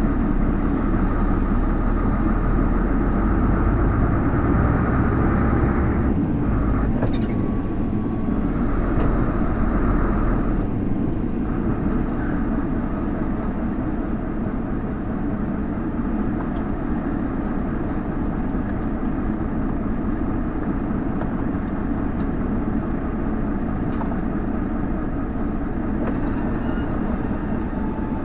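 Truck cab noise while driving: a steady engine and road drone. The deepest rumble eases slightly about ten seconds in.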